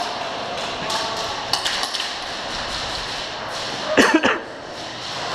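Steady background din of a large indoor hall, with a few sharp clicks about a second and a half in and a short, loud, voice-like burst, like a cough, about four seconds in.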